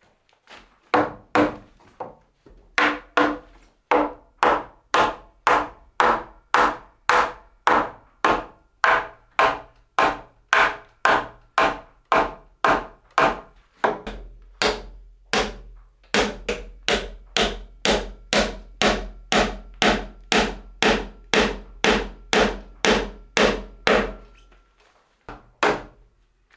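Mallet striking timber in a steady run of sharp blows, about two a second, knocking together the joints of a wooden roof truss. The blows stop shortly before the end.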